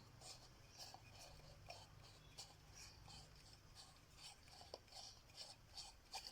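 Faint, irregular scratching strokes and light clicks, over a low steady hum.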